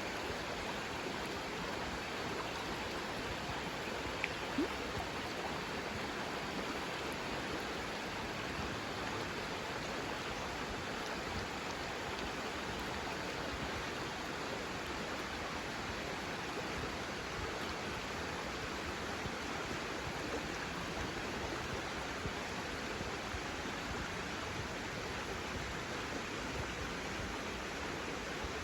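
Steady rushing of flowing water, an even hiss with no rhythm, and a couple of faint ticks about four seconds in.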